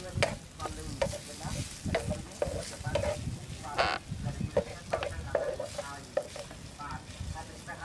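Shredded ginger sizzling in a nonstick frying pan while it is stirred and scraped with a wooden spatula, in repeated short strokes, with one longer, louder scrape about halfway through.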